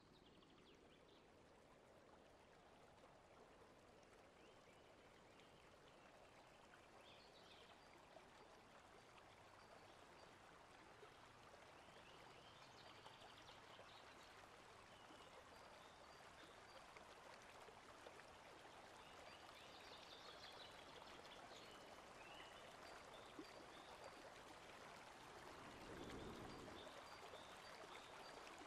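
Faint running water of a forest stream, a steady rushing hiss that grows slowly louder, with faint high chirps now and then and a brief low rumble near the end.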